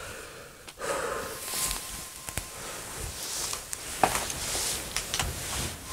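Footsteps and rustling of someone moving through a cluttered room, with scattered clicks and knocks; the sharpest knock comes about four seconds in. A faint steady high tone runs underneath.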